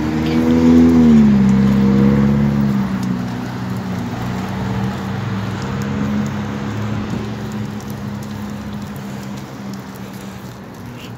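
Road traffic passing close on a wet street: a vehicle's engine goes by about a second in, its pitch dropping as it passes, then a steadier traffic hum with tyre hiss that slowly fades.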